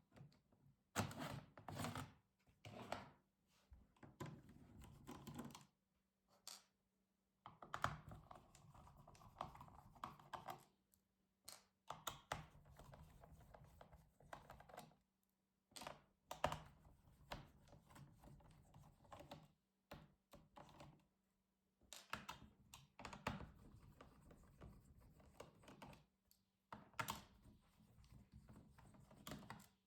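Hands and small tools working on an HP Pavilion 17-f notebook's plastic case during disassembly: faint, irregular clicks and taps with stretches of scraping.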